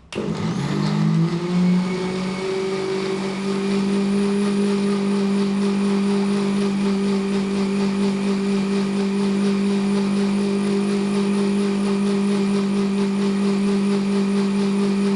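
Electric kitchen mixer grinder switched on, spinning up over the first couple of seconds and then running at a steady whine while blending leaves with water into juice.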